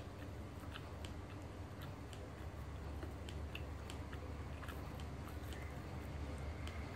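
Close-up chewing of roti prata, with many small wet mouth clicks, over a steady low hum.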